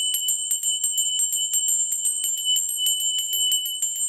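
A small high-pitched bell rung rapidly and continuously, its clapper striking about seven times a second over a steady ringing tone.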